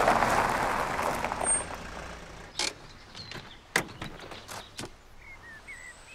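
A Mercedes-Benz W123 coupé pulls up on a gravel drive. A rushing noise of tyres and engine fades over the first two seconds as the car comes to a stop. Several sharp clicks and knocks follow as the car's doors are unlatched and opened.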